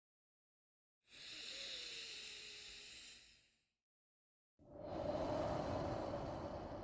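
Slow, deliberate breathing: a thin, high, hissing breath starts about a second in and fades out, then after a second of silence a fuller, deeper breath begins near the end.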